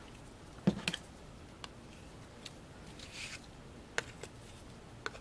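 A spreading tool scrapes whipped spackle across a plastic stencil with a soft hiss, and gives a few light clicks as it taps and lifts off the stencil.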